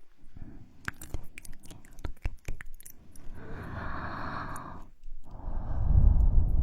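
Close-miked ASMR mouth sounds: a run of sharp wet mouth clicks and smacks, then a breathy hiss, and in the last second or so a louder breathy sound with a low rumble.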